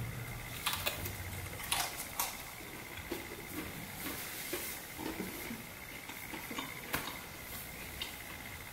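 Close-up chewing of a breaded fried chicken tender: faint, scattered crunches and wet mouth clicks.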